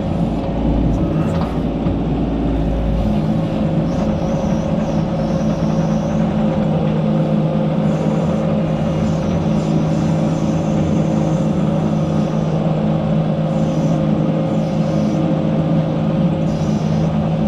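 Mini excavator's diesel engine running steadily under throttle while the machine tracks forward, with a low rumble for the first few seconds.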